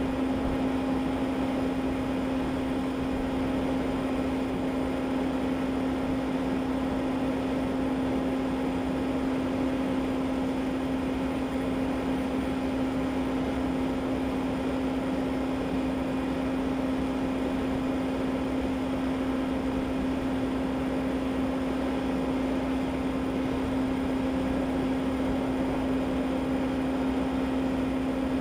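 Steady mechanical hum at a constant pitch over a broad hiss, unchanging throughout, like a machine running at a fixed speed.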